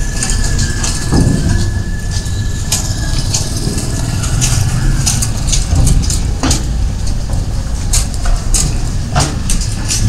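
A motor vehicle's engine running close by as a steady low rumble, with irregular sharp clicks and knocks and a faint steady high whine over it.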